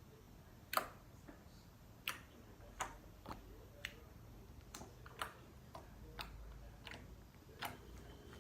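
Jiggly slime being squeezed and poked by hand, giving about a dozen sharp, irregular clicks and pops.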